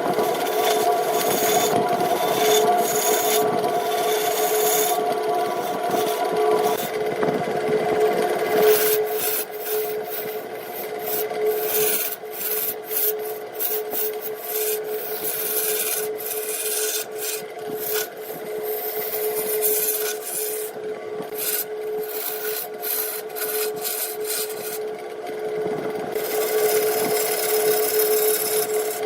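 Wood lathe running with a steady hum while a tool scrapes against the spinning wood. From about nine seconds in the scraping comes in short, uneven strokes that break off and start again.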